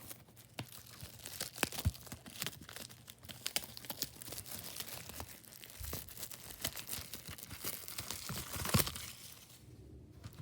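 Plastic shrink-wrap being torn and crinkled off a DVD case, with many small sharp crackles and clicks; the rustling stops about a second before the end.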